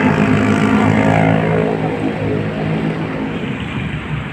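Busy highway traffic below: many motorcycle and car engines running together in a steady, loud drone, with a passing engine tone falling slightly about a second in.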